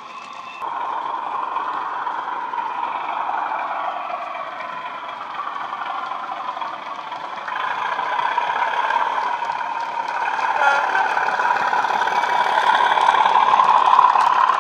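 Sound-fitted Bachmann Class 37 model diesel locomotive under power: its decoder plays a recorded Class 37 English Electric diesel engine sound through a pair of 20x20x7 mm speakers. It runs steadily and grows louder near the end as the loco passes close by.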